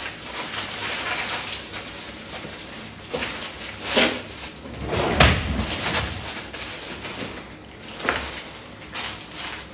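Kitchen cupboard doors and drawers being opened and shut during a rummage through the low cabinets, with a few sharp knocks and bangs, the loudest about five seconds in.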